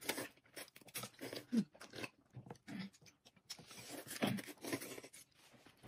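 Close-up eating sounds: hot and sour noodles slurped up and chewed, in short irregular bursts.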